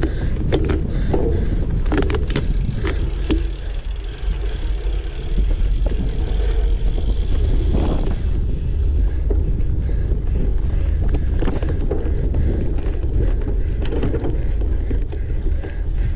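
Cyclocross bike ridden hard over rough ground, with frequent rattles and knocks from the bike and wind rumbling on the microphone.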